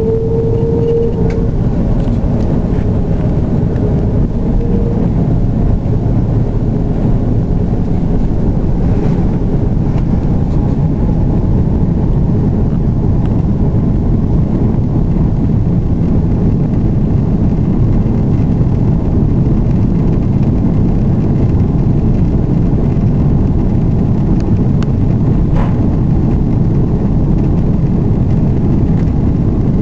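Airbus A330-200 jet engines at take-off power, heard inside the cabin during the take-off run: a loud, steady rush. A rising whine in the first second or so fades out as the engines spool up.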